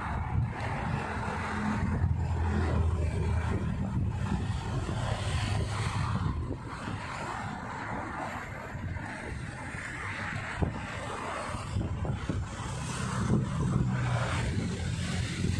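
Motor traffic running past, a low engine hum that swells in the first few seconds and again near the end, with wind noise on the microphone.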